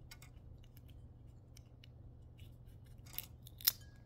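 Brittle shells of sweet tamarind pods cracking as they are peeled by hand: a run of small crisp clicks, with two louder snaps about three seconds in.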